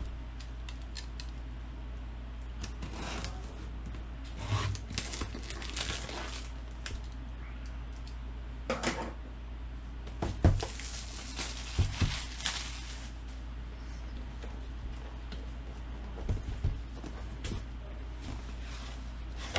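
Clear plastic shrink-wrap being cut and pulled off a small cardboard box. It crinkles in several bursts, loudest from about ten to thirteen seconds in, with a few light knocks as the box is handled on a table.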